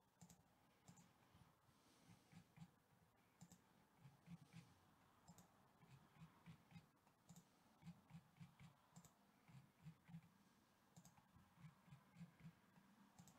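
Near silence broken by faint, irregular computer mouse clicks, often two or three a second.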